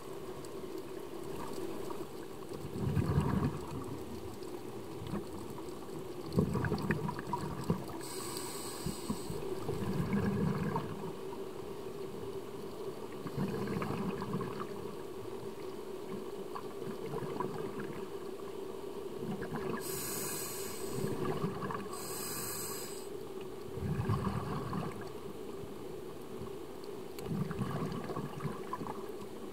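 Scuba diver breathing through a regulator underwater: short hissing inhalations and bubbling, rumbling exhalations every few seconds, over a steady low hum.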